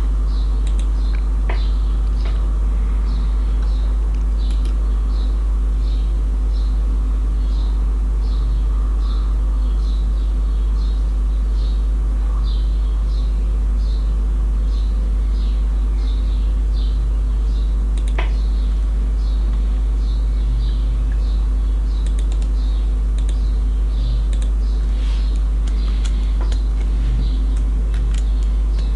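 A loud, steady low electrical hum with a faint buzz above it. Faint regular ticks run through it, and a few computer keyboard key presses come near the end.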